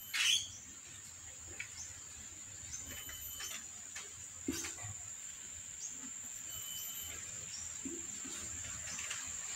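A few short taps and scrapes of kittens moving about in a plastic tub lined with a cloth, the sharpest about a third of a second in and another about halfway, over a steady high thin whine.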